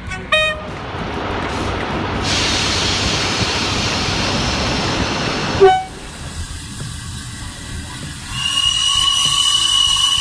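A train passing. A brief horn toot is followed by a rising rush of noise that holds for a few seconds and then stops abruptly, with a short low horn note. Near the end there is a steady, high-pitched tone.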